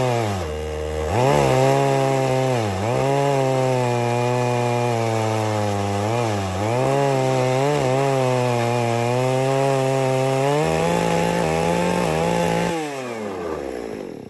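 Holzfforma G660 two-stroke chainsaw at full throttle, ripping a slab from a red oak log in a chainsaw mill. The engine pitch dips briefly several times under the load of the cut and rises about 11 seconds in. It falls away near the end and dies out.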